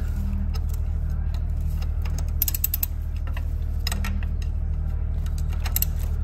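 Hand ratchet clicking in a few short runs of quick clicks while the exhaust camshaft sprocket bolt is undone, over a steady low hum.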